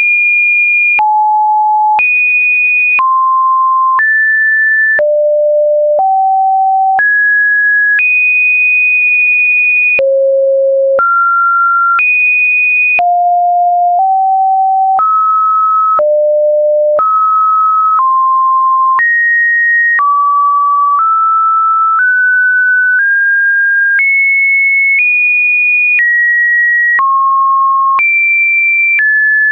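Computer-generated sine test tones: a single pure beep that jumps to a new, random-seeming pitch about once a second, ranging from about 550 Hz up to about 2.5 kHz, with a slight click at each change.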